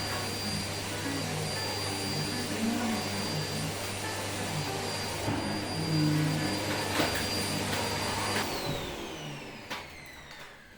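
Household vacuum cleaner running steadily with a high whine, then switched off about eight and a half seconds in, its motor winding down with a falling whine over the next two seconds.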